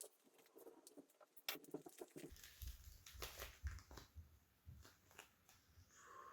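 Faint, irregular clicks, taps and soft thumps of hands handling playing-card decks and their boxes.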